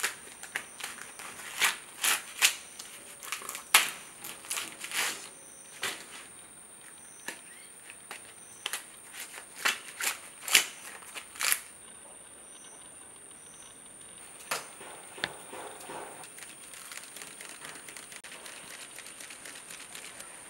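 Fresh green maize husks being torn and stripped from the cobs by hand: a series of sharp rips and snaps in quick clusters for about the first eleven seconds, then only faint rustling.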